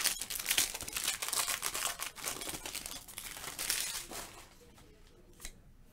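Shiny foil wrapper of a football trading-card pack being torn open and crinkled by hand, a dense crackling rustle that dies away about four seconds in. A faint single click comes near the end.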